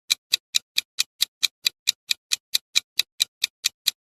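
Clock-like ticking of a quiz countdown timer sound effect: short, even ticks at about four to five a second, marking the time left to guess.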